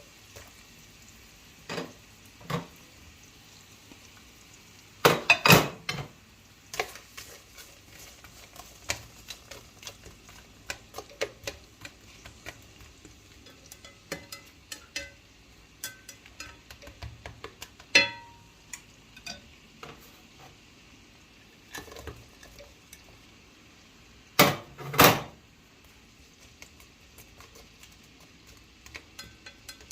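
Kitchen utensils clinking and knocking against cookware during cooking: scattered light clicks, with two louder clatters about five seconds in and near the end, and one short ringing clink partway through.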